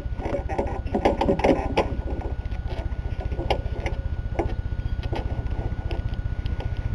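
Badly worn Briggs & Stratton lawn mower engine running with a steady low putter, with some irregular rattling about a second in. The engine had been run without oil, leaving it with scored cylinder walls and a piston loose in the bore.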